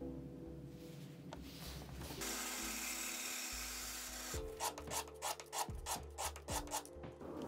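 A small metal piece rubbed back and forth on a strip of sandpaper, about three strokes a second, in the last three seconds. Before that, a saw cutting through a stack of wooden discs makes a steady hiss. Background music plays underneath.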